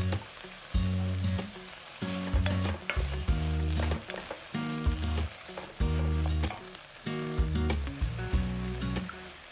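Diced carrot, celery and onion sizzling as they sauté in an enamelled cast-iron pot, with a wooden spoon stirring and scraping through them. Background music of low held notes in a slow rhythm plays underneath.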